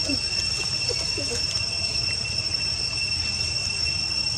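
Steady high-pitched insect drone holding a single unchanging pitch, over a constant low rumble, with a few faint brief wavering sounds in the first second and a half.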